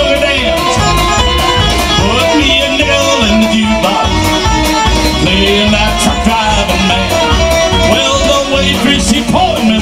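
Live country-rock band: electric guitar, electric bass and drum kit playing with a steady beat, and a man singing lead into a microphone.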